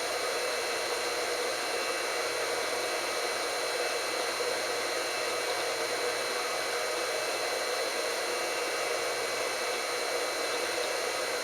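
Steady, unchanging background hiss with a few faint high steady tones, like a fan or the recording's own noise; no handling or machine rhythm stands out.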